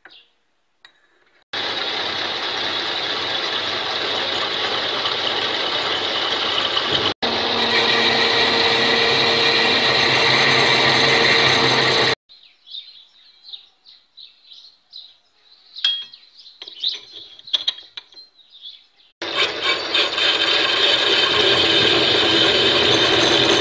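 Homemade metal lathe running with a steady whir, stopping about twelve seconds in. Several seconds of irregular metal clicks and scrapes follow, then the lathe runs again near the end.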